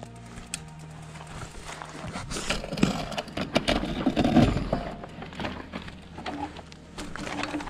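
Mountain bike with its action camera being lifted and moved by hand: a rumbling, knocking handling noise on the camera's microphone with scattered clicks and rattles, loudest around the middle.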